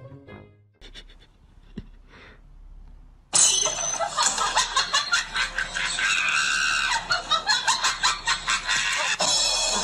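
A person laughing loudly and shrieking in quick pulses, starting suddenly about three seconds in; before that, only faint sounds and a single click.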